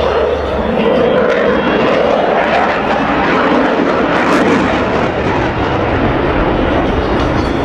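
Steady, loud jet noise from a Dassault Rafale fighter's two Snecma M88 turbofan engines as it manoeuvres through an aerobatic display.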